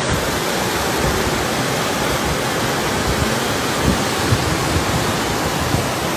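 Fast muddy floodwater rushing through a street in a steady, loud wash of noise, with a few dull knocks near the middle.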